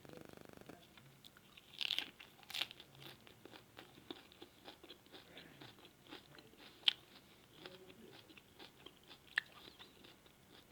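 Close-miked chewing and biting on grilled liver: a steady run of short mouth clicks, with a few sharper, louder clicks scattered through.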